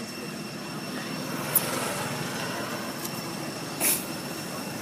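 Steady outdoor background rumble with a faint, steady high whine over it, a single sharp click about one and a half seconds in, and a short hissing rustle near the end.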